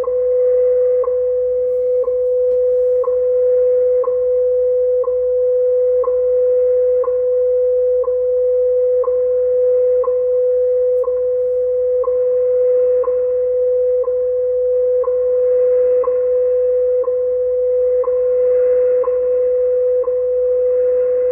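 WWV time signal received on 25 MHz shortwave through a Yaesu FTdx10 transceiver in AM: a steady 500 Hz tone broken by a short tick once every second, the station's seconds pulses, over light band hiss.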